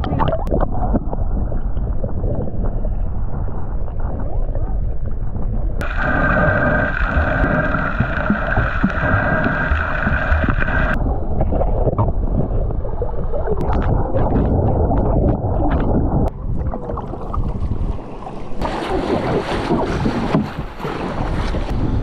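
Wind rushing over the microphone with water noise, as on a moving boat. The sound changes abruptly about six, eleven and eighteen seconds in, with a higher steady band between about six and eleven seconds.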